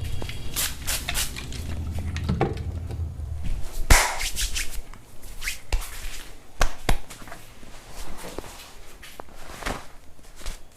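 Hands working over skin and hair in a head and body massage: rubbing, with scattered sharp snaps and claps, the loudest a single snap about four seconds in. A low hum runs under the first few seconds.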